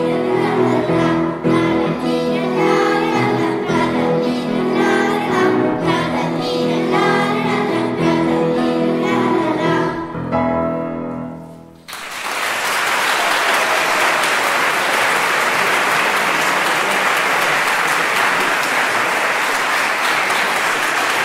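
A children's choir sings with grand piano accompaniment, ending the song on a held final chord just under twelve seconds in. The audience then breaks into steady applause.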